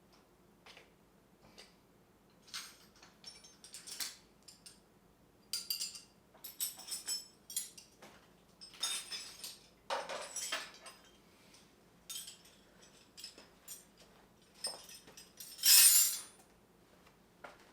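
Metal hand tools clinking and clattering in irregular bursts as they are handled and set down in a toolbox, the loudest clatter about 16 seconds in.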